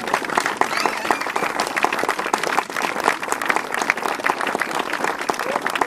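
Audience applauding: many people clapping hands at once in a dense, steady patter.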